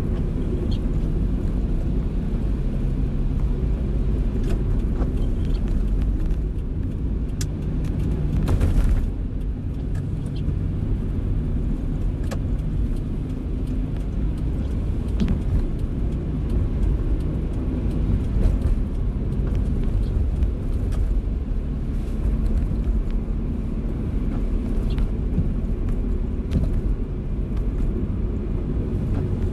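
A car driving in the rain: a steady low rumble of engine and road, with scattered ticks of raindrops. About nine seconds in there is a brief, louder burst of noise.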